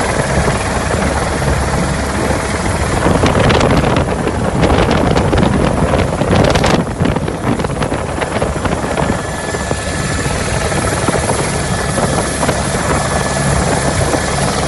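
Helicopter cabin noise: the steady drone of the rotor and turbine engine with a thin steady whine. A louder rushing patch comes in between about three and seven seconds in.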